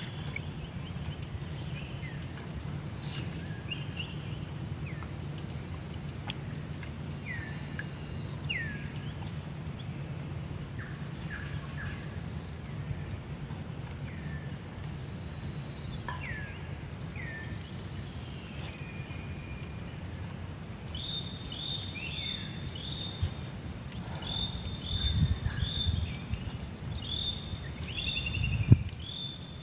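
Wild birds calling over outdoor ambience: scattered short, falling whistled notes, turning in the last third into a quick run of repeated chirps. A steady high whine and a low hum run underneath, and a couple of dull thumps come near the end, the last one the loudest sound.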